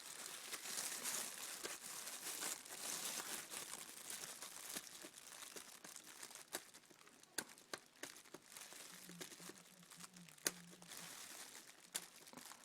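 Handling noise: rustling with a few sharp little clicks as tiny drill bits are worked out of their fitted case.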